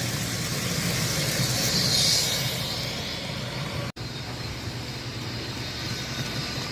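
N-scale model UAC TurboTrain's DCC sound decoder playing a steady jet-like gas-turbine whine and hiss through the model's small speaker. It breaks off for an instant about four seconds in.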